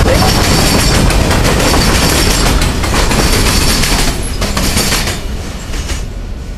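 Freight train cars rolling past close by, the wheels clacking over the rail joints in quick repeated knocks. The noise drops away about five seconds in as the last cars pull away.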